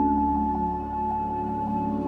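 Ambient soundtrack music: a steady drone of held, ringing tones.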